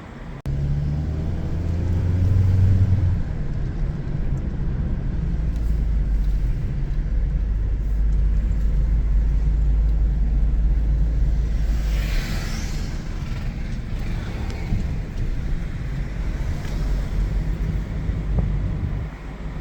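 A car's engine and road rumble, steady and low throughout, with the engine's hum strongest in the first few seconds. A brief hiss about twelve seconds in.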